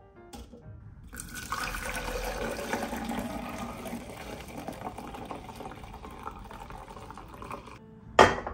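Chicken broth poured from a pot through a mesh sieve into a plastic jug: a steady splashing pour lasting about six and a half seconds. Near the end, the steel pot is set down with a sharp knock on the gas stove's grate.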